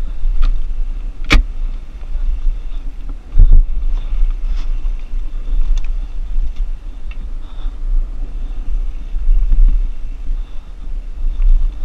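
Mountain bike descending a dirt trail at speed, heard through an action camera: a steady low wind rumble on the microphone with scattered knocks and rattles from the bike, the sharpest a click about a second in and a heavy thump about three and a half seconds in.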